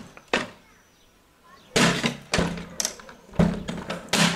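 A series of sharp knocks and thuds: one about a third of a second in, then after a quiet second several more at irregular intervals.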